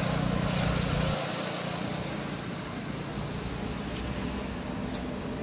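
A motor vehicle's engine running, louder for about the first second and then easing into a steady low rumble.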